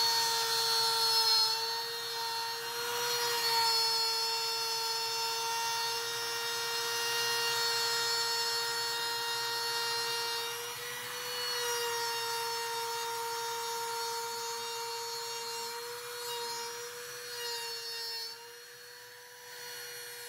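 Compact trim router running with a steady high whine while its straight bit cuts a groove in a cedar board along a straight-edge guide. The pitch sags briefly a few times as the bit takes load, and near the end the cutting noise drops away while the motor keeps spinning.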